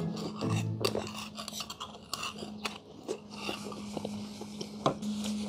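Drinking the last of the broth straight from a black bowl, then a metal spoon scraping and clinking in the bowl as it is lowered, with one sharp clink near the end. A steady low hum runs underneath.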